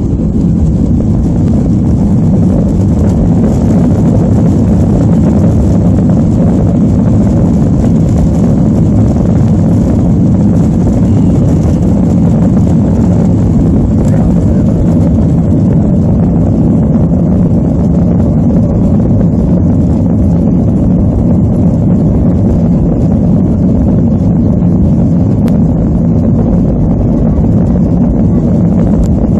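Steady cabin rumble of a Boeing 737-800 rolling on the ground, heard from a window seat over the wing: the CFM56 engines running and the airframe and wheels rumbling, with no change in pitch or level.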